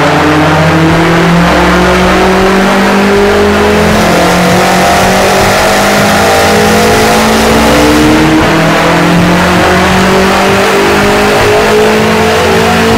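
BMW X6M's twin-turbo V8 running hard on a chassis dyno through a Meisterschaft turbo-back exhaust, the revs climbing slowly in one long pull. The exhaust note is loud and steady.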